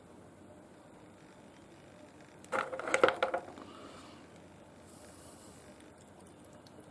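A short clatter of hard clicks and knocks, about two and a half seconds in, as rough opal nobbies are put down and picked up among other stones on the tray; otherwise only faint room noise.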